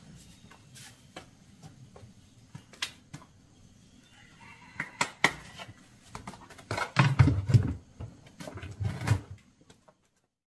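Handling knocks and thumps as a red plastic lid is picked up and fitted onto a plastic bucket, with a few light clicks at first and the loudest knocks about seven to nine seconds in.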